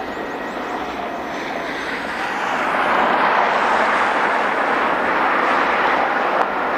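Jet airliner engines, a loud wide rushing noise that grows louder about two to three seconds in and then holds steady as the plane passes.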